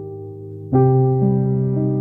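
Calm instrumental music on electric piano: a soft note rings, then a fuller chord is struck about three-quarters of a second in and left to sustain while further notes join.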